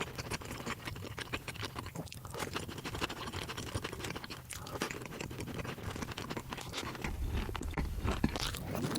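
Close-miked crunching and chewing of crispy fried food, a steady run of irregular crunchy bites.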